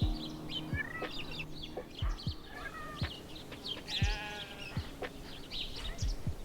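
Farmyard sounds: birds chirping, with a short wavering, bleat-like animal call about four seconds in, over a faint steady thud about once a second.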